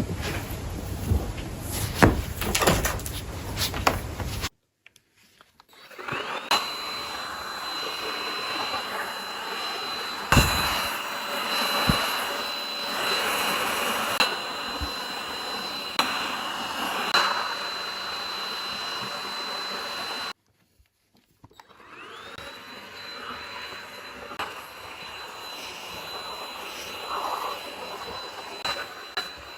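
Household cleaning in short cuts: a few seconds of clatter and knocks, then a vacuum cleaner running with a steady high whine. The whine breaks off briefly at a cut about two-thirds of the way in, then resumes.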